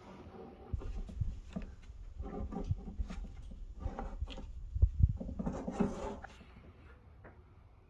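Irregular clunks, clicks and scraping as a front-loading washing machine's stuck drum is worked on to free a clothes peg lodged in it. The loudest knocks come about five seconds in, and it goes quieter near the end.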